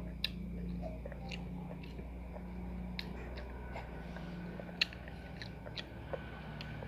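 A small child chewing rice and fried egg eaten by hand, with scattered sharp clicks of eating and handling food, over a steady low hum.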